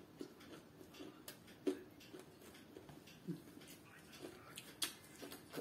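Faint wet mouth sounds of biting into and sucking on a fresh orange wedge: scattered small smacks and clicks.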